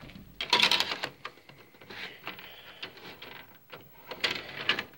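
Plastic clicks and rattles of a DVD being handled and set into the open disc tray of an Xbox 360 console, with louder clusters of rattling shortly after the start and again near the end.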